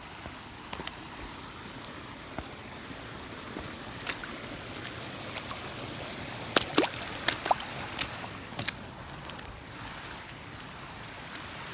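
Steady rush of flowing creek water, with scattered sharp clicks and knocks that bunch together a little past the middle.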